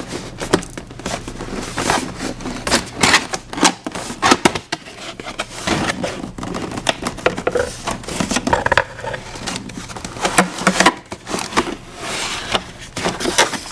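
Toy playset box being opened by hand, its cardboard and plastic packaging handled: a dense, irregular run of clicks, crackles and scrapes.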